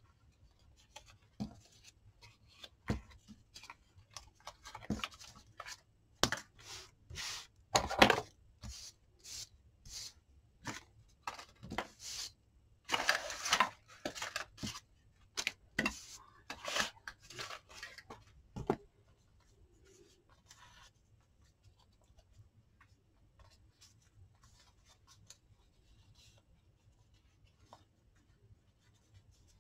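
Paper being handled, peeled from its backing and cut with scissors: a run of short rustles, snips and light taps, densest about 13 seconds in, that stops about 19 seconds in, leaving only faint rustles.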